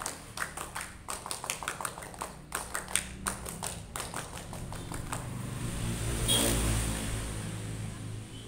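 A small group of girls clapping their hands in a quick, uneven rhythmic pattern as part of a cheer routine, stopping about five seconds in. Then a swell of noise with a low rumble rises and fades around six to seven seconds in.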